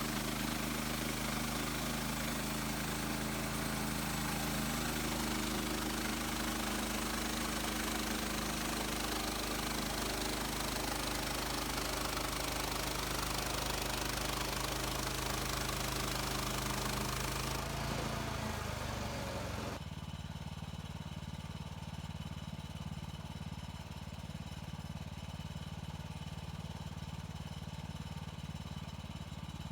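Gas engine of a portable bandsaw sawmill running at high speed with the blade going. About 18 seconds in its revs fall away, and it settles to a steady idle.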